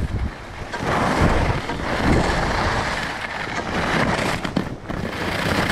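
Wind rushing over the microphone of a camera carried by a skier running straight downhill, mixed with skis hissing over packed groomed snow; the noise swells and eases every second or so.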